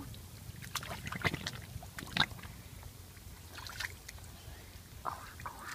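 Irregular splashes and sloshes of shallow muddy water stirred by bare feet and hands wading through it, the loudest about two seconds in.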